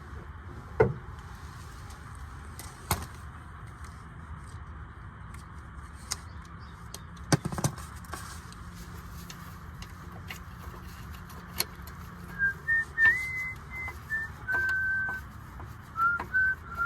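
A few sharp metallic clinks of hand tools while a 10 mm clamp bolt is worked loose, followed over the last few seconds by a series of short whistled notes that step up and down in pitch.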